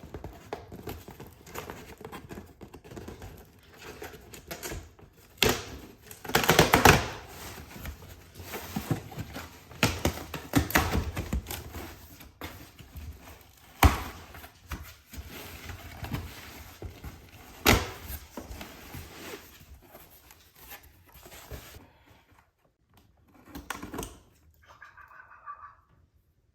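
Objects being handled and set down: irregular knocks, thunks and clicks with rustling in between, the loudest knocks about five to seven seconds in, near fourteen seconds and near eighteen seconds.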